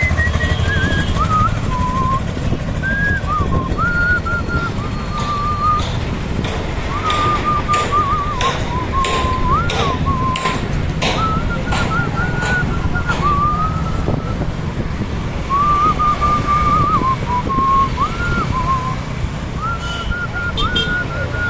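A person whistling a tune: one clear, wavering melody in short phrases, over a steady low rumble of wind and road noise, with a short run of clicks about midway.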